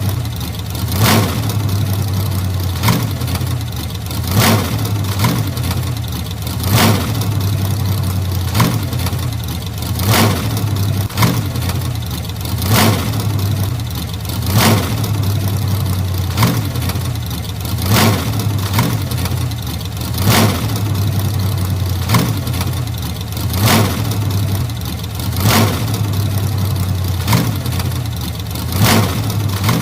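1940s car engine idling steadily with a low hum. A sharp pop cuts through it about every two seconds.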